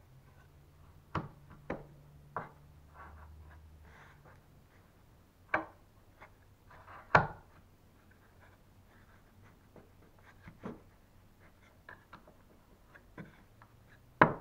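Wooden spar crutch parts knocking and rubbing together as they are handled and slotted into each other. There are about eight sharp wooden knocks spread out, the loudest about seven seconds in, with softer sliding and rubbing between them.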